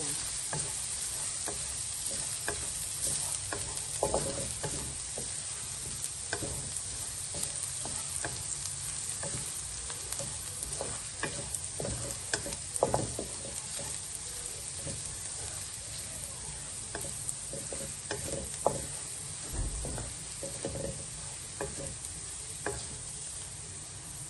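Minced garlic sizzling in hot oil in a wok, with a wooden spatula scraping and tapping against the pan as it is stirred throughout.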